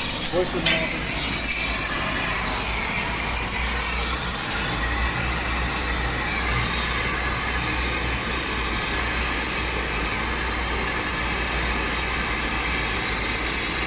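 Gas brazing torch flame hissing steadily, with a low rumble underneath, while copper pipe is brazed.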